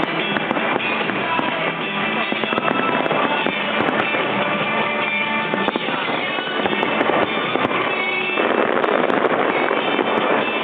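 Fireworks bursting and crackling without a break over music with held tones; the crackle thickens and gets louder about eight seconds in.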